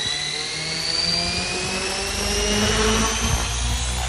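OXY5 RC helicopter's electric Xnova brushless motor spooling up with a steadily rising whine. The rotor noise grows louder as the helicopter lifts off.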